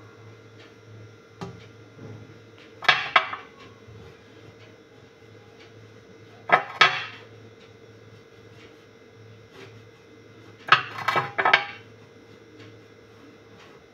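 Glass clinking against glass: three short bursts of clinks and rattles, about four seconds apart, over a faint steady hum.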